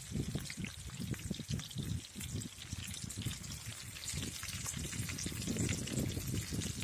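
Whole pomfret (vavval) fish frying in a pan of foaming oil, the oil sizzling and bubbling with many small crackles.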